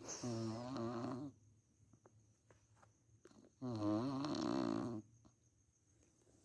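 A person snoring: two long, pitched snores, one at the start and one about three and a half seconds later, each lasting just over a second, with quiet breathing gaps between.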